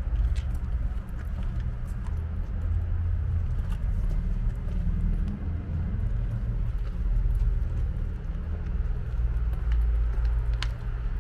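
Outdoor city ambience: a low, steady rumble with a few light clicks scattered through.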